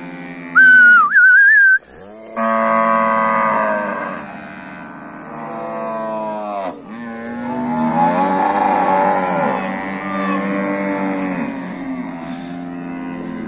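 Herd of zebu cattle mooing, several long, drawn-out moos following and overlapping one another. Near the start a loud, wavering whistle of about a second, a call to the cattle, is the loudest sound.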